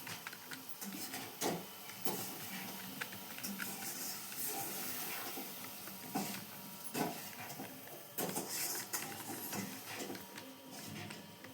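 Computer keyboard being typed on steadily, with a fast, irregular patter of key clicks and a few heavier key strikes.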